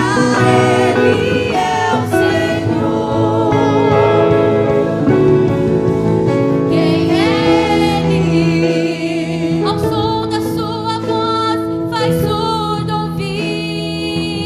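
Women's vocal group singing a gospel worship song in Portuguese, voices held in long notes with vibrato over instrumental accompaniment.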